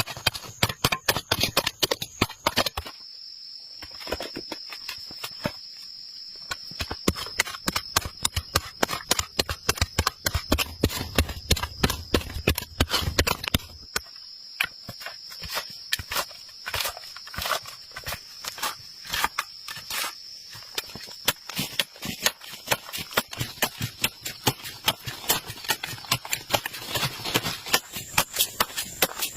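Rapid, uneven series of sharp knocks or taps, several a second, over a steady high-pitched whine.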